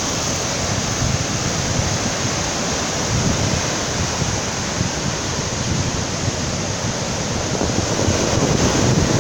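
Sea surf: waves breaking and washing on the shore in a steady rush, swelling slightly near the end, with wind buffeting the microphone.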